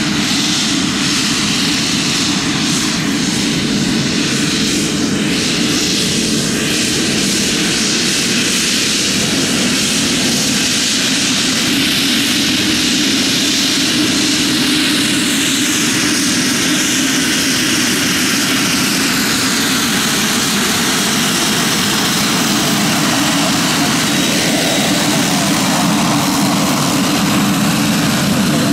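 Pilatus PC-12 NG single-engine turboprop (Pratt & Whitney Canada PT6A) running while taxiing: a steady propeller drone under a high turbine whine and hiss. The whine glides down in pitch a few times.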